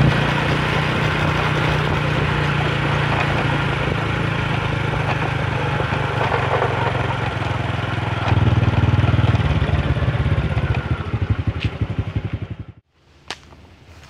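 Motorcycle engine running while ridden, louder for a while about two-thirds of the way through, then its beats slow and die away until it cuts off just before the end. A single click follows in the quiet.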